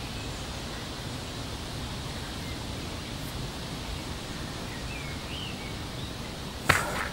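Steady outdoor background hiss with a few faint bird chirps, and one short sharp noise about six and a half seconds in.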